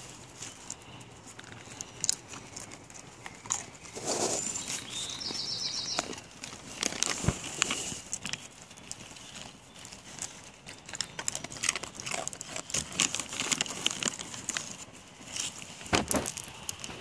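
Dogs eating small hand-fed treats: scattered crunching and chewing clicks with sniffing and mouth noises, a few louder bursts among them.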